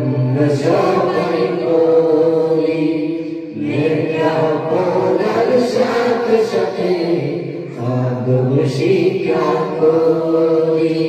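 Madrasa boys singing an unaccompanied Islamic gazal, in long held phrases with short breaks about every four seconds.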